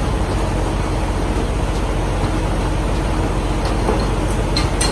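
Steady low rumble of an idling heavy diesel truck engine, with a few light clicks near the end.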